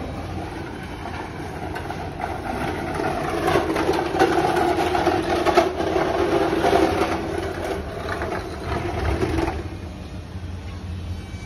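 Machinery running: a steady mechanical hum with rattling and clatter. It grows louder after a couple of seconds and drops off sharply about nine and a half seconds in.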